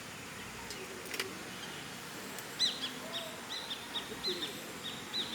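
A small bird chirping: a run of short, high, quick notes repeated two or three times a second, starting about halfway through. A couple of faint clicks come before it.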